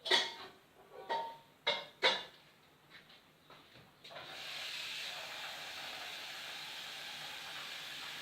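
A few knocks and clinks as a large glass bottle is handled, then, about four seconds in, a steady rush of water starting to run into it as it is filled.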